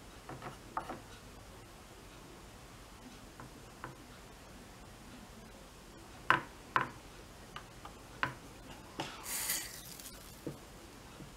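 Small sharp clicks and taps of hand work on a circuit board with a soldering iron and a small hand tool, loudest and most frequent about six to eight seconds in. Near ten seconds comes a short scratchy hiss as the iron tip is wiped in a tip cleaner.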